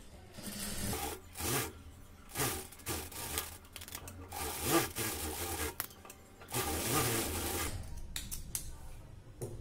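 Industrial sewing machine stitching a seam in several short runs, the longest about two-thirds of the way in, over a steady low hum, with fabric rubbing and sliding under the hands.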